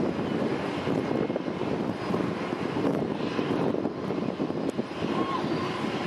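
Floatplane's propeller engine at takeoff power, a steady drone across the water as the plane runs along the surface and lifts off.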